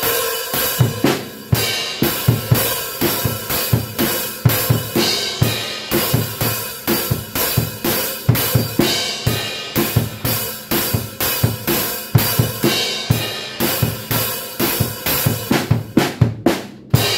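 Acoustic drum kit being played: continuous beats of bass drum, snare and cymbals, ending near the end in one cymbal crash that rings out and fades.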